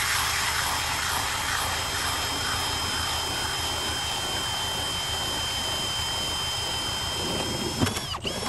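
Milwaukee M18 2804 cordless hammer drill on low speed, turning an 8-inch ice auger through a gear-reduction plate: a steady high motor and gear whine over the grinding of the auger cutting ice. Near the end comes a knock, then the whine winds down and stops, gives one short blip, and cuts off.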